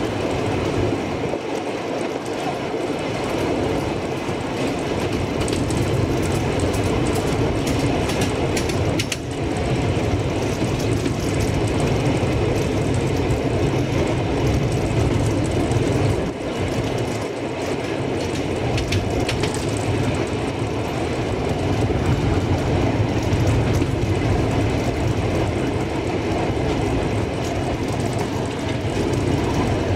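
785 mm narrow-gauge train running steadily along the track: a continuous rumble of wheels on rails, with a few brief clicks.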